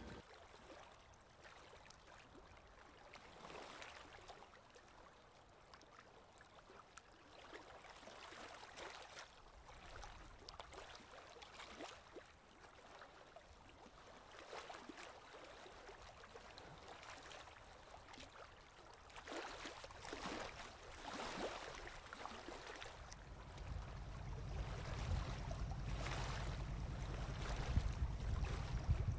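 Water sloshing and lapping in slow, irregular swells. Over the last few seconds a low rumble comes in and grows louder.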